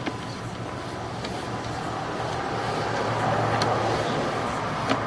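A machine running steadily with a low hum and a noisy rush that swells about three seconds in, with a few sharp clicks.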